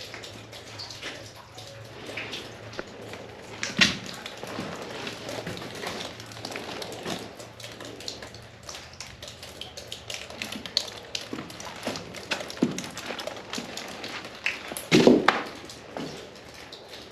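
Water dripping and splashing in the bunker's tunnel: many scattered small drips and clicks, with two louder splashes or knocks, one about four seconds in and one near the end.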